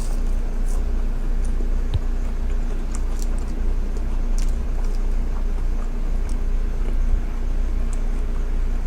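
Steady low background hum with sparse faint clicks and smacks of someone chewing a burger with their mouth closed.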